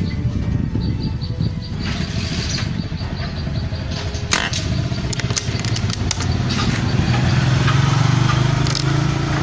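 An engine running steadily, growing louder over the last few seconds, with a single sharp click about four seconds in.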